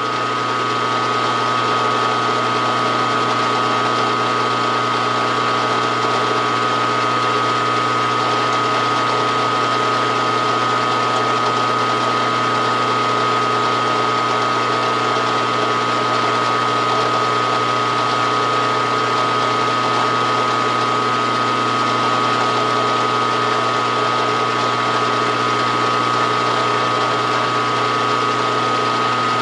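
Milling machine spindle running steadily with a small drill bit in its chuck, a constant high whine over a lower motor hum.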